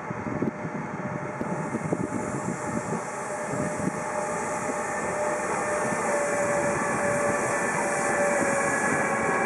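Two electric locomotives, a Lokomotion Class 185 and a second unit, hauling a freight train closer, with a rumble that grows steadily louder. From about halfway, a steady whine of several tones rises above the rumble.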